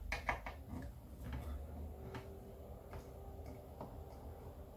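Faint small clicks and ticks, a quick cluster in the first second and then a few scattered single ones: a driver working loose the screws that hold the fan in a computer power supply.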